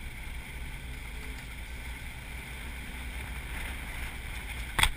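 Off-road vehicle driving along a dirt trail: a steady low engine and tyre rumble with wind on the microphone, and one sharp knock near the end.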